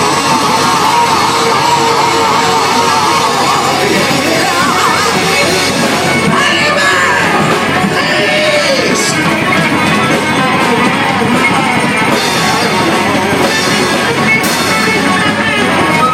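Loud live rock music: a band playing with electric lead guitar, with some yelled vocals.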